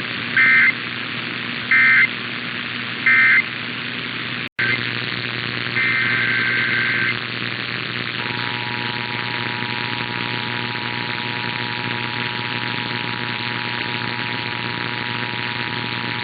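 EAS/SAME digital data bursts: three short, shrill warbling bursts about a second apart, the end-of-message code closing the test. After a sudden dropout, a single data burst of about a second follows, then the EAS two-tone attention signal (853 and 960 Hz) sounds steadily for about nine seconds over constant radio hiss.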